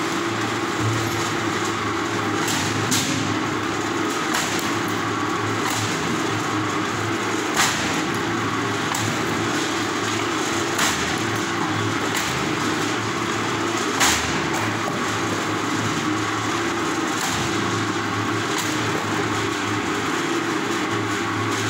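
ЛЕСОРУБ mechanical firewood splitter running steadily as blocks of wood are fed through it, with a handful of short sharp knocks and cracks of wood being split and tossed. The loudest knocks come about a third and two-thirds of the way through.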